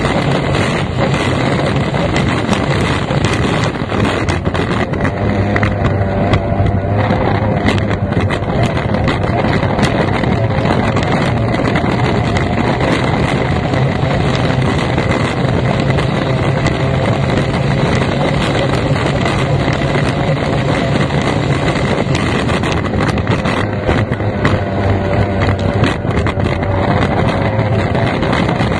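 F1 racing powerboat's outboard engine running hard under way, loud and continuous, its pitch shifting slightly now and then, with wind noise on the microphone.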